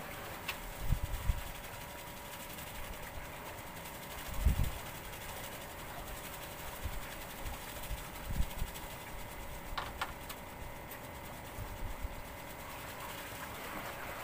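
Low gusts of wind rumbling on the microphone, about three times, over a faint steady hum, with a couple of sharp clicks.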